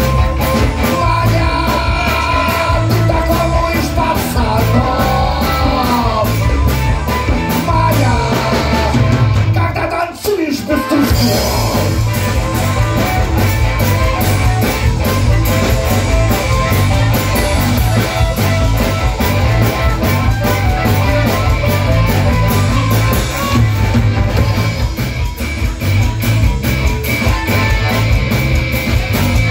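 Live rock-and-roll band playing an instrumental break: drum kit, bass, electric guitars and harmonica, with a brief dip in the sound about ten seconds in.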